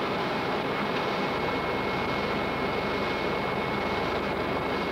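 Steady jet noise in a Boeing 727 cockpit at takeoff power during the takeoff and climb-out, with a thin steady high whine over it.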